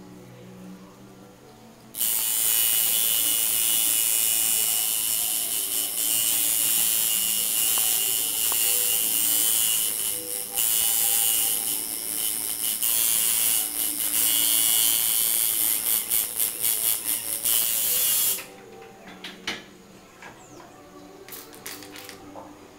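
Tattoo machine buzzing as the needle packs blue ink into the skin of a leg tattoo. It starts about two seconds in, runs steadily, then stutters on and off several times in quick succession before cutting off.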